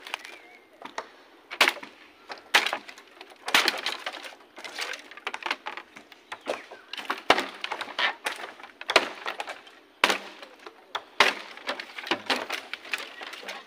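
Dry felled bamboo and brush cracking and snapping, a sharp crack roughly once a second at an uneven pace.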